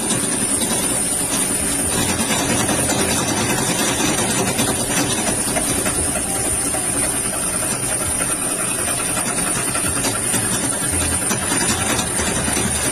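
Industrial sewing machine running steadily: a fast, even mechanical clatter with a constant high whine.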